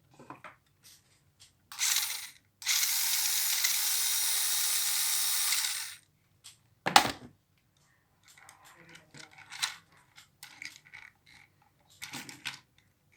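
Small electric motors and gearboxes of a 6x4 RC rock crawler whirring: a short burst about two seconds in, then a steady whirr for about three seconds that stops suddenly. A sharp click follows, then light clicks and handling of plastic parts.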